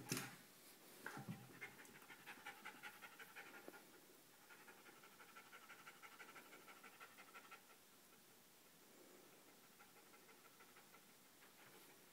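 A dog panting faintly in quick, rapid breaths after running about chasing, starting about a second in and fading out after seven or eight seconds.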